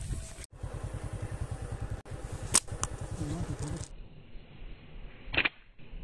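Motorcycle engine idling with a rapid, even low putter and one sharp click partway through. Near the end comes a single loud, sharp snap.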